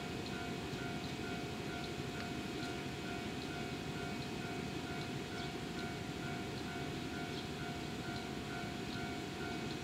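An electronic warning chime pulsing evenly about twice a second, over the low steady rumble of a standing EF65 electric locomotive.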